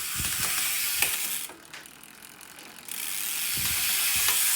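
Profile Elite rear cassette hub freewheeling with a fast ratchet buzz from its pawls, in two stretches broken by a pause of about a second and a half in the middle.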